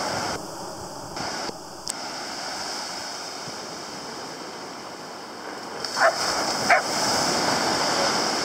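Small waves breaking and washing up a sandy beach, with wind on the microphone. About six seconds in, two short cries about half a second apart rise above the surf.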